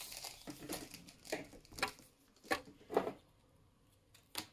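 Clear silicone tubing handled and gathered up by hand: a string of short rubbing and tapping sounds as the tube moves and knocks against the tabletop, with a sharp tap near the end.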